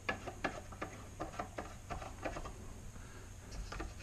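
Light, irregular clicks and taps from a wooden rifle rest as its screw clamp is turned by a wooden handle and the rest is handled.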